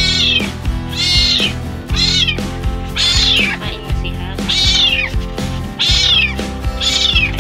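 A young kitten meowing over and over, high-pitched cries about once a second, with background music underneath.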